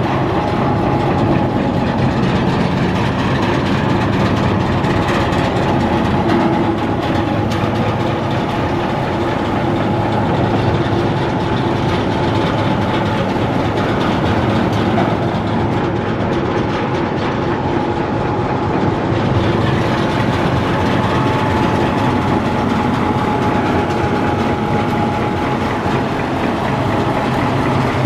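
Natural gas engine running steadily, driving an oil-well pumpjack: an even mechanical running sound with a thin steady high tone over it.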